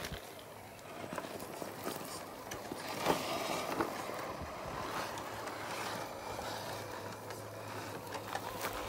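Axial SCX10 III Base Camp RC crawler driving through long grass: a faint electric motor and gear hum with grass brushing and scraping against the truck and small ticks from its tyres on rock.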